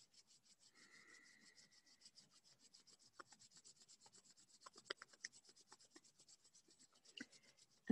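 Palms rubbed briskly together, a faint, quick skin-on-skin swishing at about eight strokes a second, with a few soft ticks about five seconds in.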